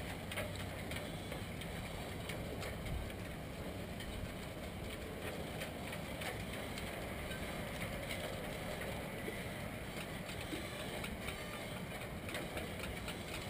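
Steady outdoor background hiss on a boat, with faint scattered light clicks and ticks.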